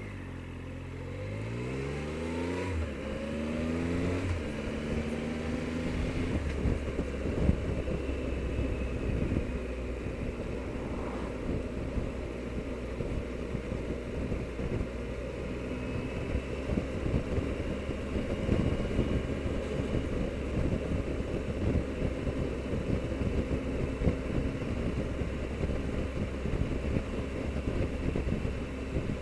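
Triumph Explorer motorcycle's three-cylinder engine accelerating, its pitch climbing steadily for the first four seconds or so, then cruising at speed under a steady heavy rush of wind on the microphone.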